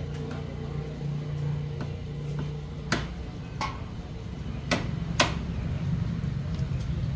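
A steady low hum with a few sharp clicks or knocks over it: one about three seconds in, a fainter one just after, and two close together near the five-second mark.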